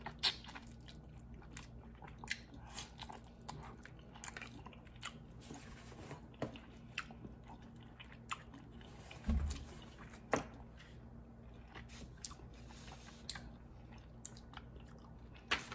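Close-up chewing and biting of dim sum chicken feet: soft, wet mouth sounds with many small irregular clicks and crunches as the skin and cartilage are worked off the little bones. A low thump comes about nine seconds in, and a sharper click near the end.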